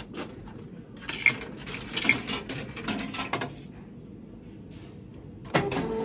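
Coins clinking as they are fed into a meal-ticket vending machine, a quick run of metallic clicks, followed near the end by a short electronic tone.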